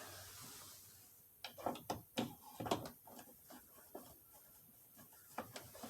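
Irregular light clicks and taps of a plastic steering-column shroud and a screwdriver being handled while a shroud screw is put in.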